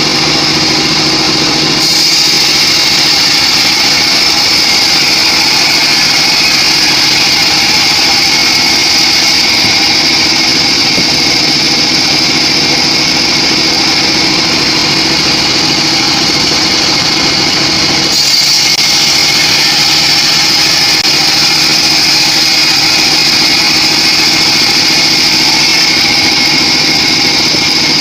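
Homemade band sawmill running steadily as it rips a teak log, with a strong high whine over the engine's drone. The tone shifts abruptly twice: about two seconds in and near eighteen seconds.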